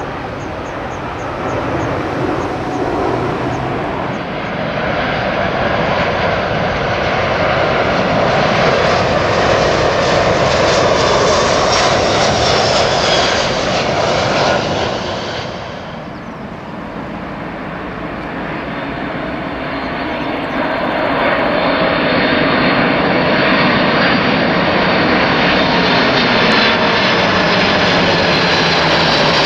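Four-engine widebody jet airliners on final approach passing low overhead: loud, steady turbofan jet engine noise that builds up, drops away abruptly about halfway through, then builds again.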